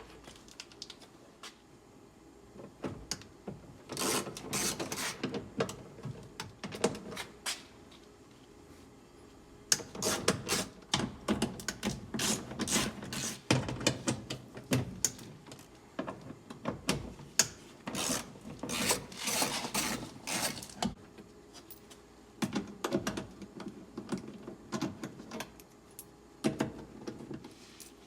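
Irregular clicks, taps and rubbing of hands handling parts inside a car door, coming in clusters with short quiet gaps and busiest in the middle.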